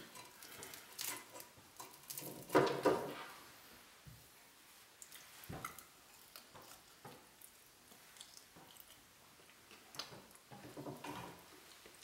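A person eating cooked quail by hand: faint chewing and biting, with small scattered clicks and handling noises at the plate. A short louder noise comes about two and a half seconds in.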